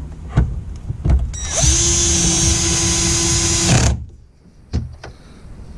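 Cordless drill/driver running steadily at one speed for a little over two seconds, driving a screw into the plastic center console trim, then stopping suddenly. A few light knocks from handling come before and after.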